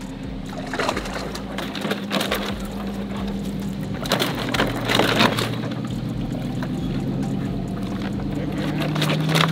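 Water sloshing and splashing as live bass are handled in plastic weigh baskets, with several splashy surges, the strongest about four to five seconds in, over a steady low engine hum.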